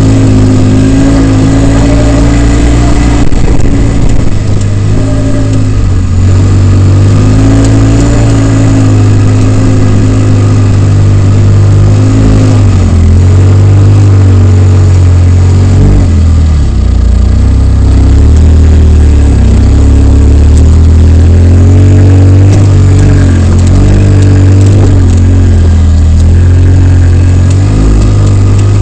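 Polaris RZR side-by-side's engine running under load, heard close from inside the open cab, its revs rising and falling again and again as it picks its way over rocks.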